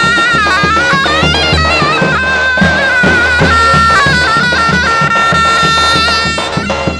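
Zurna playing a shrill, ornamented folk melody over steady davul drum beats. The zurna breaks off about six seconds in while the davul keeps beating.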